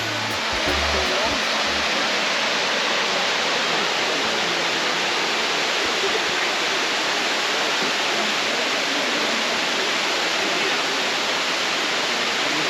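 Steady, even rush of a waterfall on Helton Creek, water pouring and splashing over rock.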